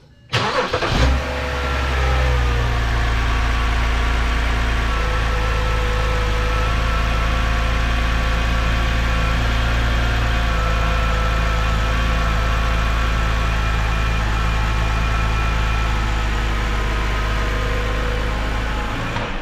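BMW E9X 3 Series inline-six engine starting and settling into a steady idle, with no squeal from the newly fitted drive belt, which now runs clear of the harmonic balancer. It stops near the end.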